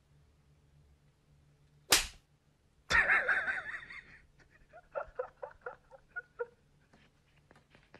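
Edited-in comedy sound effects: a single sharp whip-like crack about two seconds in, then a louder noisy burst lasting about a second, followed by a quick run of short laughing syllables.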